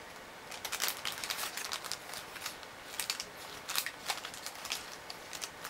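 Toy paper bank notes rustling and crinkling as they are handled, a run of short, irregular, crisp crackles.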